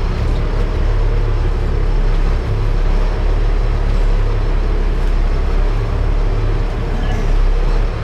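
Boat engine running steadily under way, a loud, even low drone with a hiss of wind and water over it.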